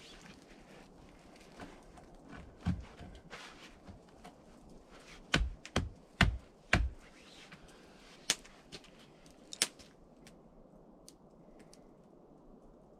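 Scattered clicks and knocks, with four heavy thumps in quick succession about halfway through and two sharp clicks after them.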